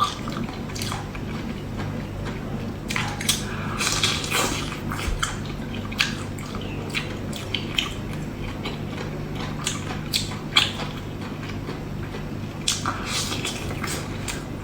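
Wet eating sounds: a person chewing and slurping, with irregular small smacks and clicks. A steady low hum runs underneath.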